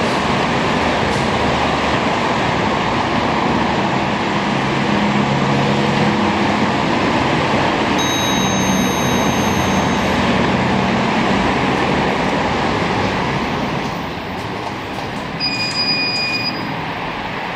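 Liftronic traction elevator arriving: a steady rushing noise of the car travelling in the shaft, then a two-second electronic arrival chime about eight seconds in as the hall lanterns light. Near the end a short electronic beep sounds from the car's button panel.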